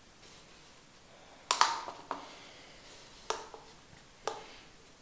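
A handful of sharp, short knocks, the loudest a quick double about one and a half seconds in and then single ones about a second apart: a resin cup tapping against the edge of a chipboard mold while the last of the epoxy resin is poured in.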